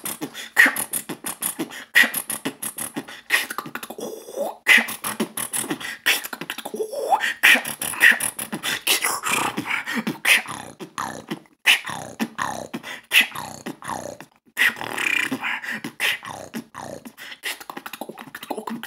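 Human beatboxing a drum and bass pattern: rapid, dense mouth-made kick, snare and hi-hat strokes with gliding bass tones woven between them, broken by two brief pauses partway through.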